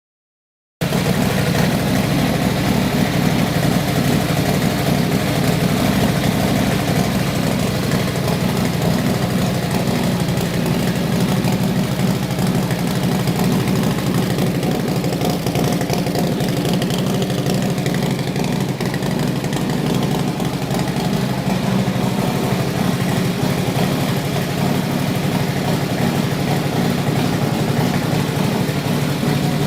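Custom Harley-Davidson V-twin motorcycle engine running steadily at idle.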